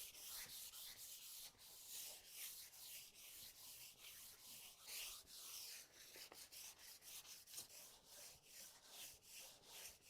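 Fine 800-grit sandpaper rubbed lightly by hand over a finished wooden tabletop, a faint hiss in regular back-and-forth strokes, a few a second, knocking down raised peaks in the finish.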